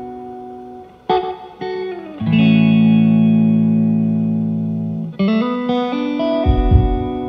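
Background music of long ringing chords that slowly fade, with a new chord struck every one to three seconds and a deep low hit near the end.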